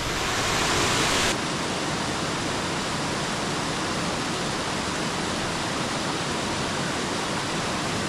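Creek water rushing steadily over rocks, a steady hiss, with a brighter, louder edge for about the first second.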